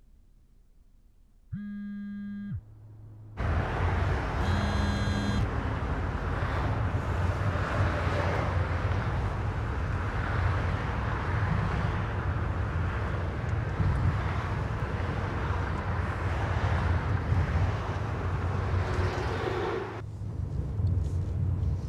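Steady road and engine noise heard from inside a moving car, with a deep rumble, starting abruptly about three and a half seconds in. Before it, a brief steady tone sounds over near silence, and a second short tone sounds about a second after the road noise begins.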